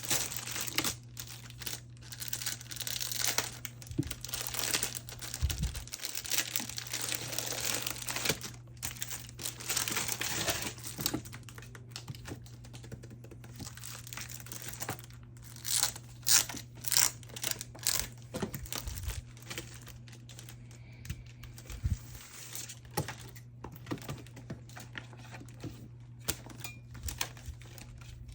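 Plastic photocard sleeves crinkling as cards are slid out of them, first in a dense rustle, then as separate light clicks and taps from about halfway on. A steady low hum sits underneath.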